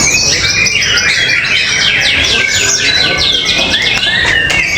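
White-rumped shama (murai batu) singing a fast, unbroken song of rapid high whistled notes and quick downward-sliding trills, rich in copied calls of other birds.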